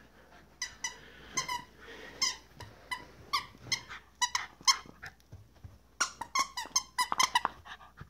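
A squeaky plush toy squeaking over and over as a Shiba Inu chews it. The short, high squeaks come in uneven bursts and are fastest near the end.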